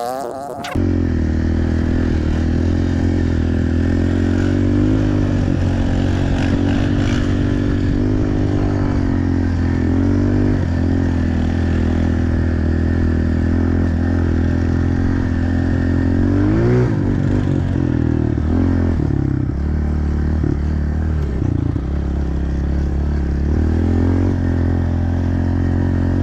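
Pit bike's small single-cylinder engine running hard at a steady pitch, with a short rise and fall in revs about two-thirds of the way through.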